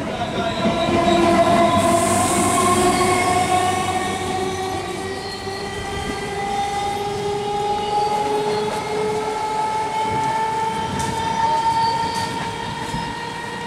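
Electric multiple unit local train pulling out and accelerating away. Its traction motors whine in several tones that climb slowly in pitch over running rumble, with a brief hiss about two seconds in.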